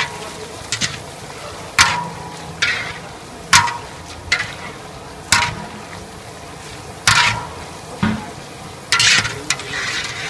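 Oil sizzling in a large metal wok as sliced balls deep-fry, with a wire-mesh skimmer scraping and knocking against the side of the wok every second or two, each stroke ringing briefly.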